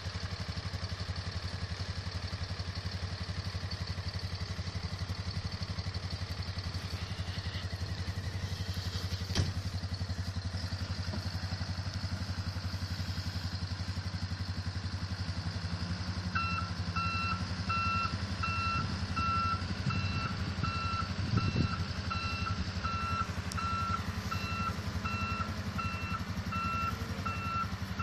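Snowcat's diesel engine running with a steady low rumble, with a single knock about a third of the way in. A little past halfway its reversing alarm starts, a steady beep about twice a second, as the machine backs up to pull a stuck snowmobile out of the snow on a tow rope.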